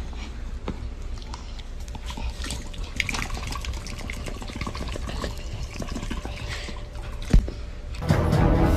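Black dog's wet mouth sounds as it licks and mouths a person's hand: an irregular run of small wet smacking clicks, with one sharp knock near the end. Music starts just before the end.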